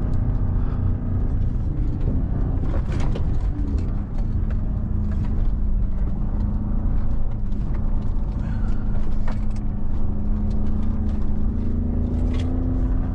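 2017 Ford Raptor's twin-turbo V6 pulling steadily over a muddy off-road track, heard from inside the cab, its drone rising slightly near the end. Scattered knocks and rattles come through over the low rumble of the truck on rough ground.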